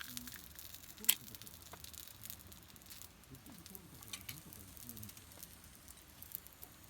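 Campfire crackling: a few sharp pops, the loudest about a second in, over a soft steady hiss.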